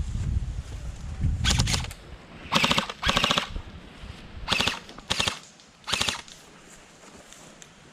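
Airsoft guns firing several short full-auto bursts of rapid clicking shots, about six bursts in all.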